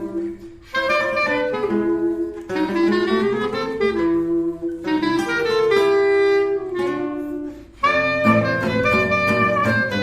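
Instrumental background music with a melody line moving note to note, briefly dropping away twice.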